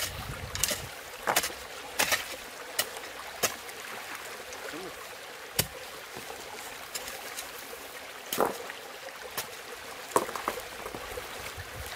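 Irregular sharp knocks and clacks, a dozen or so, over a steady rush of running stream water.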